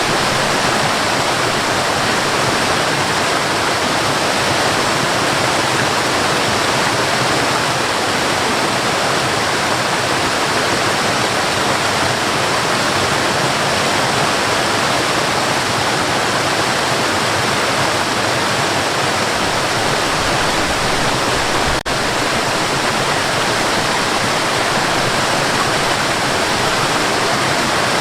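Waterfall in a forest: a steady, dense rush of falling and splashing water, with a momentary break in the sound about three-quarters of the way through.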